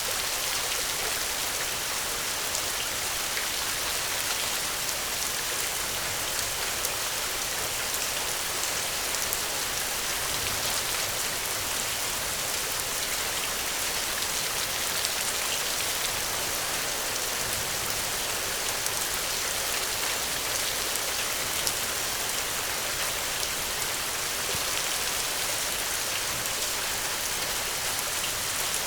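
Steady rainfall, drops pattering on a surface as a constant hiss with many fine individual drop ticks.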